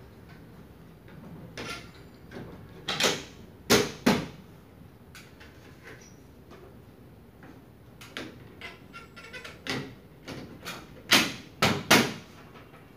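Sharp plastic clacks and knocks as the plastic panel parts of a ceiling-cassette air conditioner's indoor unit are handled and fitted, among them a corner cover of the decoration panel. There are three loud knocks about three to four seconds in, a scatter of lighter clicks around eight to ten seconds, and three loud knocks near the end.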